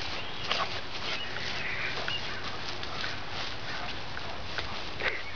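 Rustling and footsteps in long grass, with irregular light clicks, over a steady hiss. A few short, high chirps come through about two seconds in.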